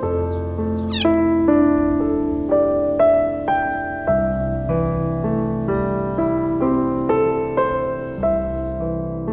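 Background piano music, a melody of evenly paced notes. About a second in, a kitten gives one short, high mew over it.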